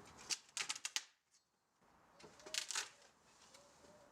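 A demolition pry bar levering boards off a wooden pallet: two short clusters of faint wood cracks and creaks, one in the first second and one about two and a half seconds in, with a few faint squeaks.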